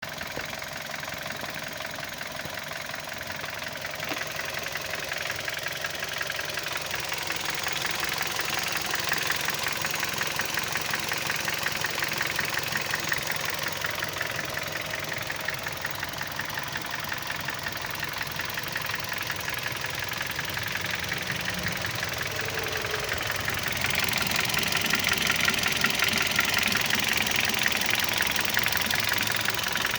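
Hyundai i30's G4FA 1.4-litre CVVT four-cylinder petrol engine running with a fast, even ticking knock, the strange noise the owner is asking about. The sound grows louder twice, in the middle and near the end.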